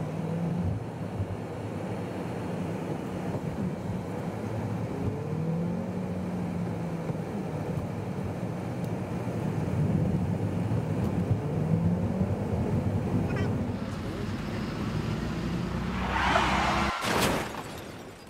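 Car engine running as the car is driven, its pitch rising and falling several times with acceleration and gear changes. Near the end comes a loud, high burst of sound, cut off by a sharp stroke, and then the sound fades away.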